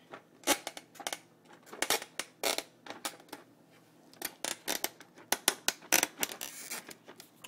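Stiff clear plastic CPU packaging being pried and wrestled open by hand: a run of irregular plastic clicks, snaps and crackles.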